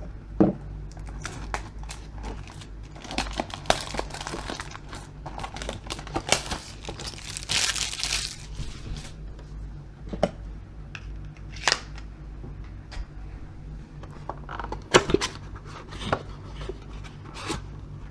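Packaging of a baseball-card blaster box being torn open and crinkled by hand: scattered rustles and sharp clicks, with a longer tearing noise about seven and a half seconds in.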